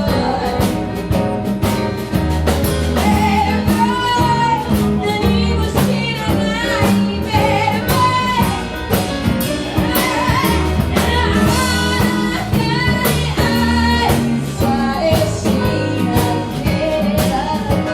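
A song with a woman singing over a band: steady bass, drums and chords.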